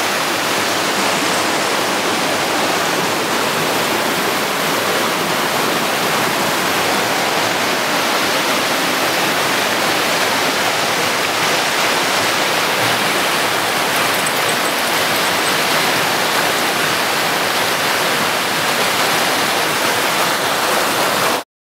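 Small rocky stream rushing and splashing over stones close to the microphone: a loud, steady rush of water that cuts off abruptly near the end.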